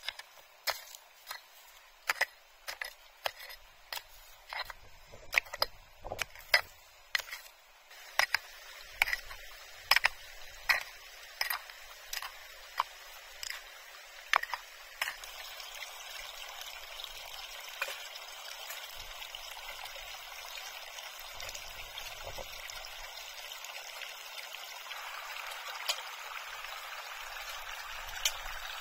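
A run of sharp knocks, roughly one or two a second, fades out about halfway through. Steady running water takes over and grows a little louder near the end.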